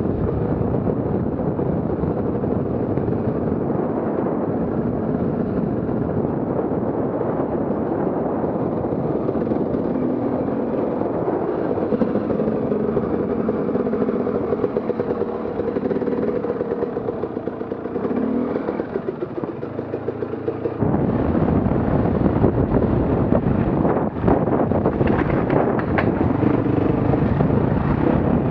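Off-road vehicle engine running steadily as it is ridden along a trail, with wind on the microphone. It eases off briefly, then an abrupt change about two-thirds of the way in brings a louder engine with a few sharp knocks.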